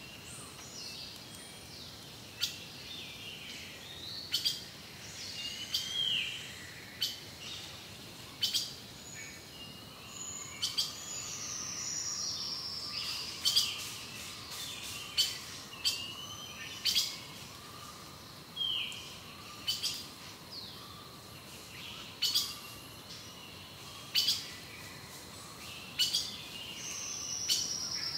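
Wild songbirds calling: short, sharp notes repeated every one to two seconds, with a few longer falling whistles, over a soft steady background hiss.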